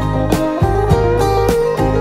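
Background music: a guitar-led, country-style track with a steady beat.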